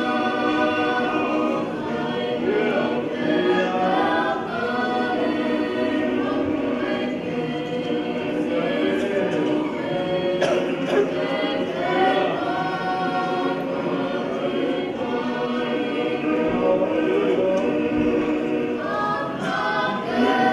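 Tongan church choir of mixed voices, children and adults, singing a hymn together without accompaniment.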